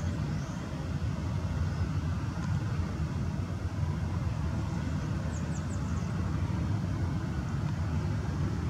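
Steady low rumble of a Boeing 737-800's CFM56 jet engines running as the airliner is pushed back, heard from across the airfield. A few short high chirps come about five seconds in.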